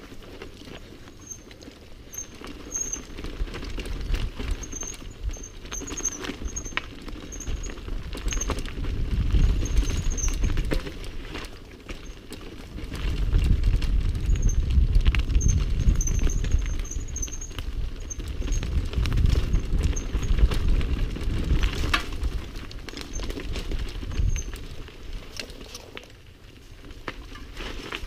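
Mountain bike running fast down a rocky, rooty dirt trail: tyres crunching over stones and roots, with many sharp knocks and rattles from the bike over the bumps. A low rumble on the microphone swells and fades in several surges as the speed changes.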